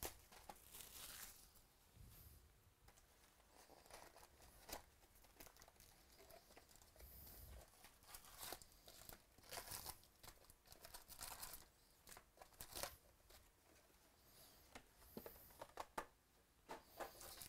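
Faint crinkling and tearing as a 2018 Bowman baseball card box is unwrapped and its perforated cardboard lid punched open, then the foil card packs inside are handled. Scattered light taps and clicks run through it.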